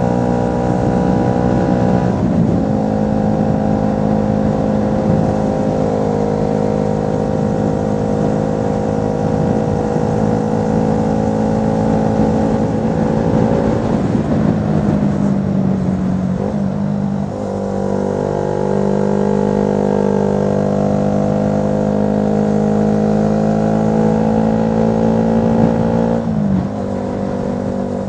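Honda CB125R's single-cylinder four-stroke engine running through a LeoVince LV ONE Evo aftermarket exhaust while the bike is ridden. The note is steady, dips and changes pitch about halfway through, picks up again, and drops once more near the end.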